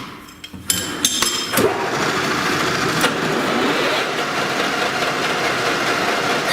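A few light metallic clinks, then from about a second and a half in a machine starts and runs steadily.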